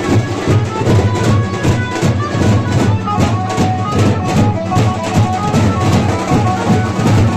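Loud music with a steady, heavy drum beat and short high melodic notes over it.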